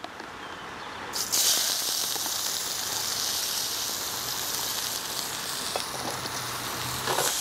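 Diced peppers and green onions hit hot oil in a skillet about a second in and sizzle steadily.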